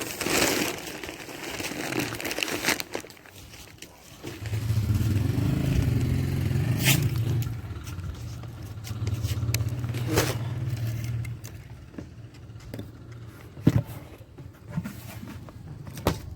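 A motor vehicle's engine running steadily for several seconds from about four seconds in, after a short scraping noise at the start, with a few sharp knocks.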